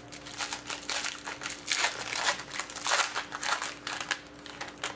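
Crinkling and rustling of plastic wrapping as a pack of hockey trading cards is opened and the cards handled, in a quick irregular series of crackles.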